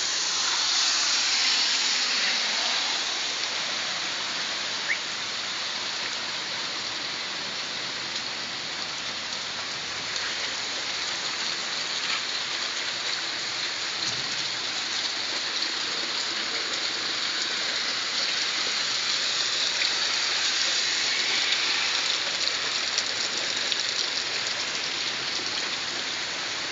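Steady rain falling on pavement and trees, an even hiss with a few faint drip ticks.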